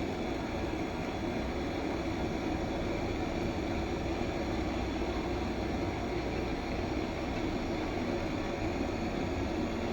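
Split air conditioner running: a steady hum and rush of fan and compressor noise with no change.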